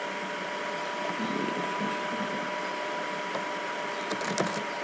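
Steady background hiss with a thin steady whine, and a few light computer-mouse clicks about four seconds in.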